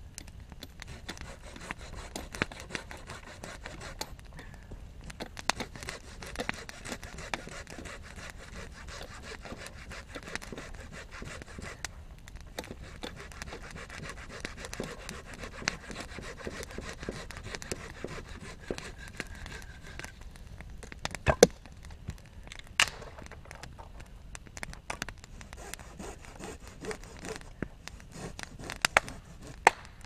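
Wood being cut with a hand saw in rasping strokes, over a campfire crackling and popping. The sawing pauses about two-thirds of the way through, where a couple of sharp cracks are the loudest sounds, then picks up again.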